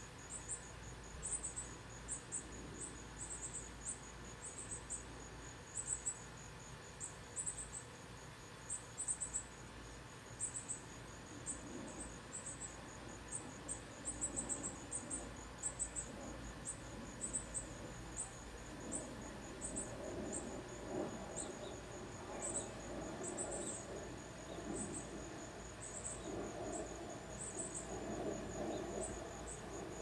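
Insects chirping: very high, short chirps in quick irregular clusters over a steady high-pitched drone. A low rushing noise builds through the second half.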